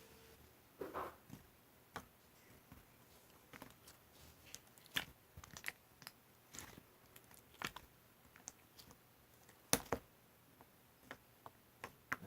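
Scattered small clicks and crunchy taps at irregular intervals, about a dozen, two of them louder than the rest.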